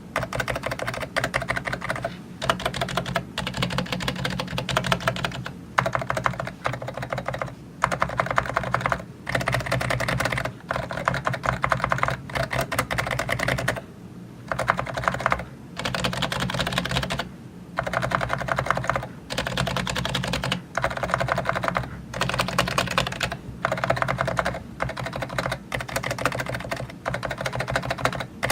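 Fujitsu Libertouch keyboard with silent tuning being typed on: runs of fast, soft key presses that last a second or two, broken by short pauses.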